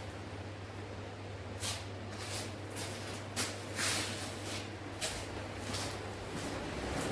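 Footsteps of a person walking, a short scuffing step every half second to a second, over a steady low hum.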